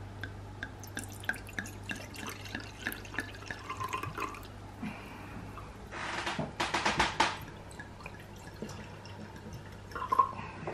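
White wine being poured from a bottle into a wine glass, gurgling in quick pulses for about a second, six seconds in. Before it comes a run of small light ticks.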